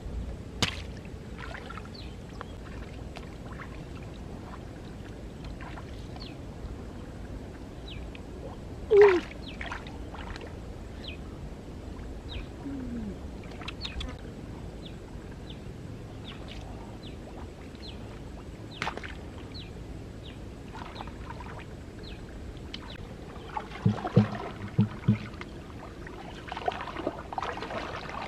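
Shallow muddy water sloshing and splashing as someone wades and gropes for fish by hand, with scattered small drips and clicks, a louder splash about nine seconds in, and a quick run of short splashes or knocks near the end.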